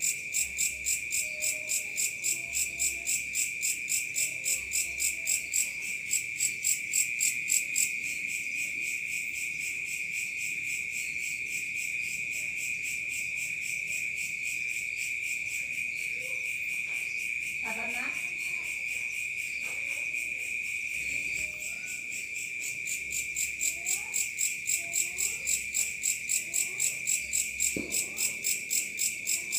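Night insects, crickets among them, chirping steadily: a continuous high trill with pulsed chirps at about three a second. The pulses merge into an even trill in the middle and return near the end.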